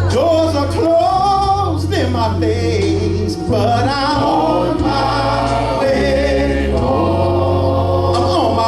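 Gospel song with voices singing a slow, gliding melody over an instrumental accompaniment whose held bass notes change every second or two.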